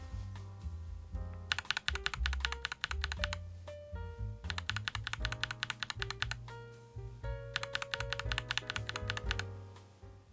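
Fast typing on a YUNZII x Coolkiller CK75, a full-acrylic, gasket-mounted 75% mechanical keyboard: quick runs of keystrokes in three spells, starting about a second and a half in, about four and a half seconds in and near eight seconds. Background music with a bass line plays throughout.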